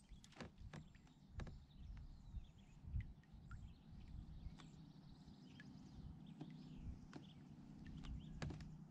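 Faint outdoor ambience: a low wind rumble with scattered light clicks and knocks, and a few faint bird calls.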